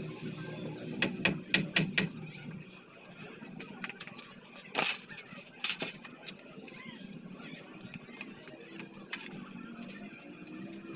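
Scattered knocks and clicks of hand work on a wooden stud wall frame: a quick run of light taps in the first two seconds, a louder knock near the middle, then a few more spread out.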